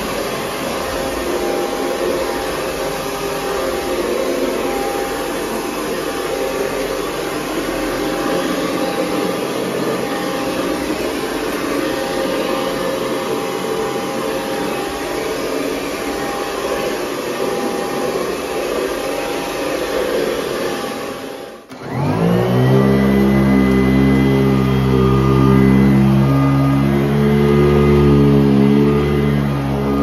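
Hoover 912a upright vacuum cleaner running over carpet with a steady whirring hiss. About two-thirds of the way through it cuts out suddenly, and a second upright vacuum, the Columbus Dixon UZ806C, starts up: its motor spins up with a rising whine and settles into a louder, deeper hum.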